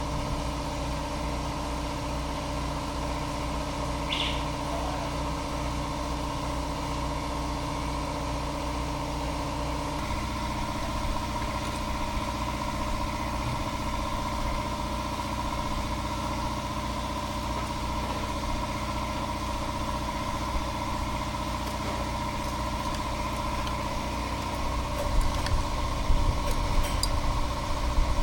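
Small lawn mower engine running at a steady speed, its pitch shifting slightly about ten seconds in, with a few knocks and rattles near the end.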